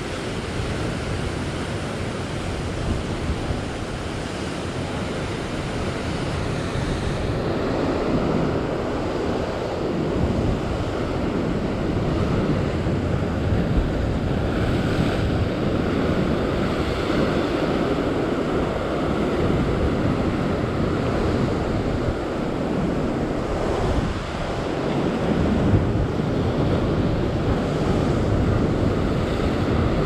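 Rough sea surging and breaking white over the rocks, a continuous wash of surf that swells and eases with the waves, with wind buffeting the microphone.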